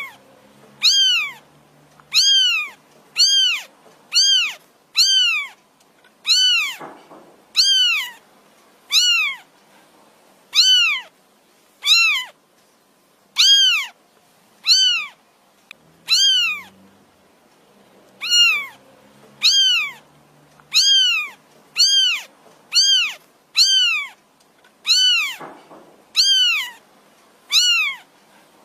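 Kitten meowing over and over, high-pitched calls about once a second, each rising then falling in pitch. These are a kitten's calls for its mother.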